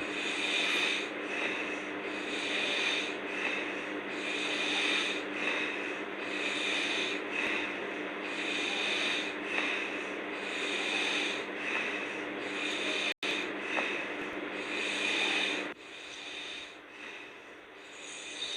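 A girl snoring hard in deep sleep, with a faint steady hum underneath. The sound cuts out for an instant about two-thirds of the way through and turns noticeably quieter near the end.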